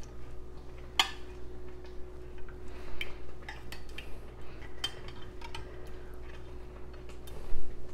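A metal spoon scraping and clinking against a glass baking dish while spreading marinara sauce over its bottom, with irregular sharp clicks scattered through.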